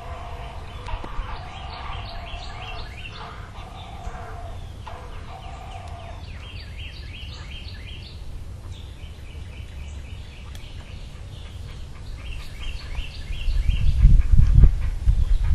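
Wild birds calling: several series of quick, high chirps, with a steadier, lower call underneath in the first half. A loud low rumble comes in near the end.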